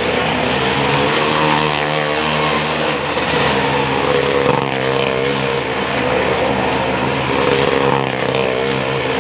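A small car and a motorcycle running hard around the near-vertical wooden wall of a well-of-death pit. Their engines make a loud, continuous drone whose pitch rises and falls every few seconds as they sweep around.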